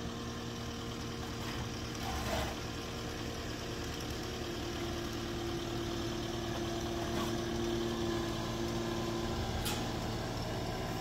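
Diesel engine of a Cat compact track loader idling steadily, with a brief knock about two seconds in.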